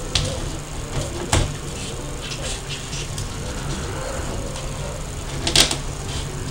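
Toothpick scratching short strokes through dried black paint on a homemade scratch art board, over a steady low hum. A few sharp knocks come through, the loudest near the end.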